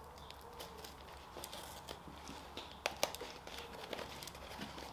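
Faint scattered clicks and rustles of a cardboard oil-filter box being opened by hand, with a sharper tap about three seconds in.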